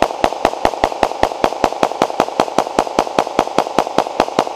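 Rapid gunfire: a long, even string of shots, about five a second, with echo filling the gaps between them.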